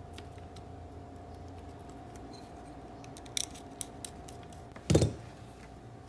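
Hands handling wires and small electrical parts on a wooden board: a few light clicks, then one louder knock about five seconds in, over a faint steady hum.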